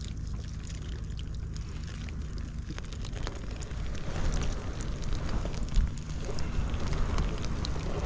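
Wind rumbling on the microphone, with faint water trickling and dripping in a mesh whitebait net; the sound grows a little louder from about four seconds in.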